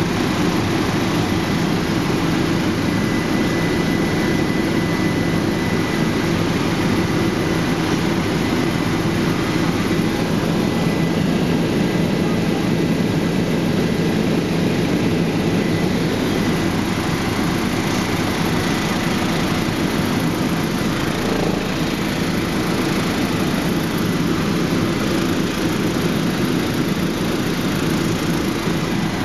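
Helicopter cabin noise in flight: the steady drone of the engine and rotors heard from inside the cabin, with a faint high whine that fades out about halfway through.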